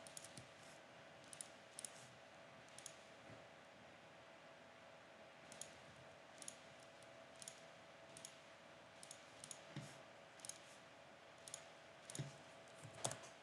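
Computer mouse buttons clicking, faint and irregular, about twenty sharp clicks with a few close pairs, over a faint steady hum.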